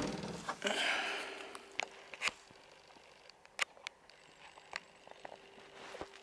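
A Daewoo Matiz's rear hatch, slammed shut, dying away at the start, then a rustle and irregular footsteps and taps on dry leaves and debris. A faint steady hum runs underneath.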